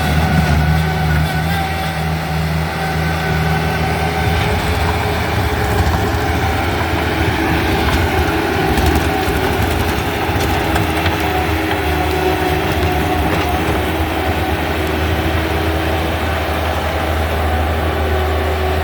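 Heavy-equipment diesel engine running steadily with a deep low hum, and a few faint knocks about halfway through.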